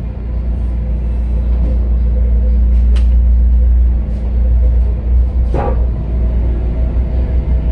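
A tugboat's marine diesel engines run with a loud, steady low rumble and hum, heard from the wheelhouse. A brief click comes about three seconds in, and a louder short knock comes a little past halfway.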